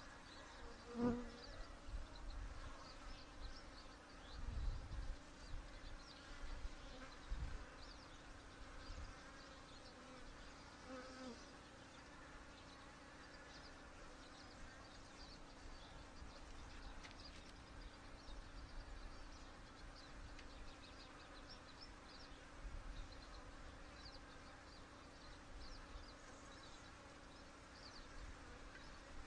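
Honey bees of a queenright colony humming steadily around an opened hive, with a few low thumps in the first several seconds.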